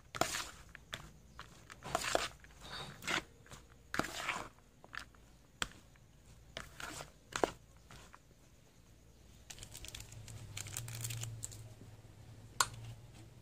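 Shredded green mango salad being tossed with a metal utensil in a plastic basin: irregular wet rustling, crinkling and scraping strokes for the first seven seconds or so. Then it goes quieter, with a low hum and a single sharp click near the end.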